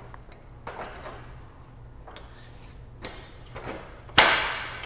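Aluminium handrail tube being worked into its post fitting: soft scraping, a small click about three seconds in, and a loud metallic clack near the end that fades over about half a second, as the spring push-button lets the rail end slide home.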